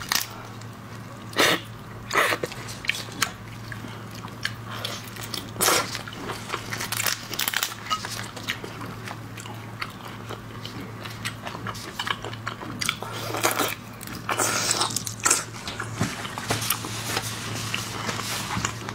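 Close-miked raw red shrimp being peeled by gloved hands and chewed: shell cracks and wet crackles, with three sharp cracks in the first six seconds and a denser run of crackling from about 13 to 16 seconds in. A steady low hum runs underneath.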